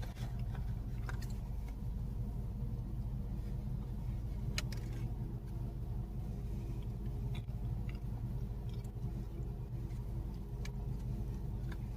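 Steady low hum of an idling car engine, with a few faint clicks.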